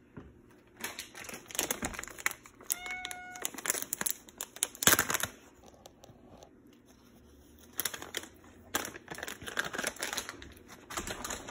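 Close handling noise at a phone's microphone: irregular rustles, scrapes and knocks, with the loudest knock about five seconds in. About three seconds in there is one short, steady, high-pitched tone.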